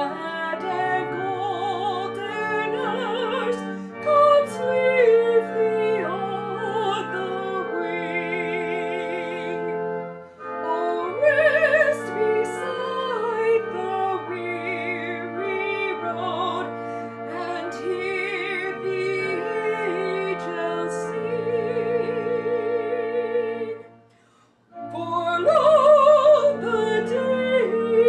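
A woman sings a solo in a classical, operatic style with wide vibrato over sustained instrumental accompaniment. The music breaks off briefly about three-quarters of the way through, then resumes.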